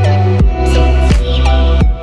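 Background music with a steady drum beat over sustained bass and chord tones.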